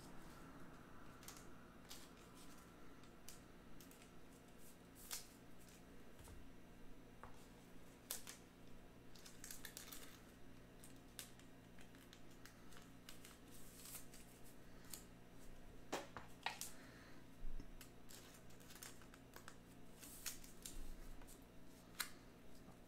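Faint handling of trading cards and foil pack wrappers: scattered rustles, crinkles and light clicks over a low steady hum.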